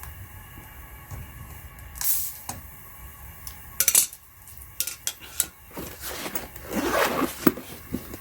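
Metal tools of a tire plug repair kit being handled: scattered clinks and clicks, with a stretch of scraping and rustling about six to seven seconds in.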